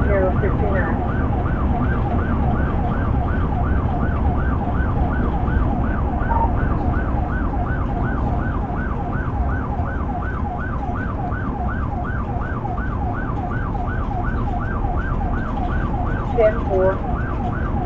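Police car's electronic siren in yelp mode, a fast whooping wail rising and falling about two and a half times a second, heard from inside the pursuing cruiser over steady engine and road rumble at highway speed.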